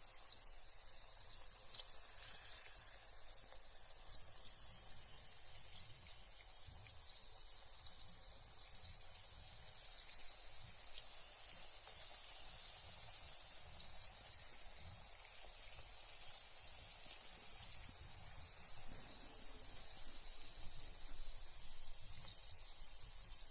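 Carbonated bath bomb fizzing in bath water: a steady high hiss of escaping bubbles, with faint tiny pops throughout.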